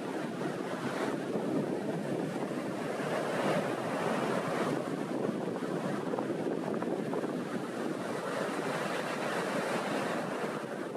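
Small waves rolling in and breaking on the shore in a continuous wash of surf that swells and eases, with wind blowing over it.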